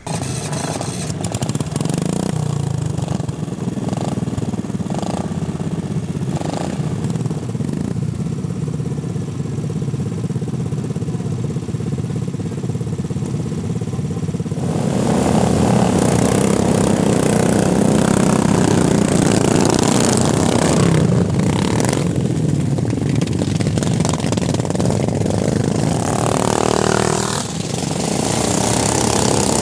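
Racing ride-on lawnmowers' small petrol engines running as the mowers drive over a muddy track. About halfway through the sound grows louder and fuller, with more than one mower running.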